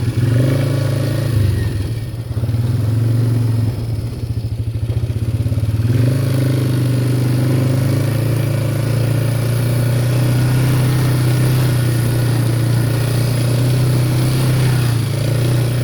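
ATV engine running; it eases off for a few seconds, from about two seconds in to about six seconds in, then runs steadily again.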